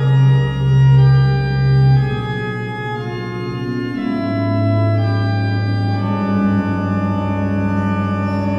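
Slow cinematic music: sustained organ chords over deep bass notes, swelling three times in the first two seconds, then holding steady as the harmony shifts every second or two.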